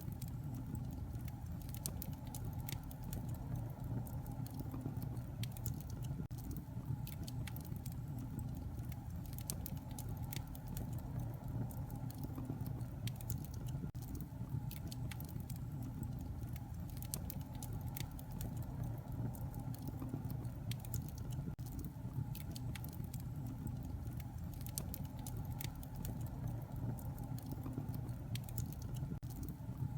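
Wood fire burning in a fireplace, crackling: many irregular sharp snaps and small pops over a steady low rumble.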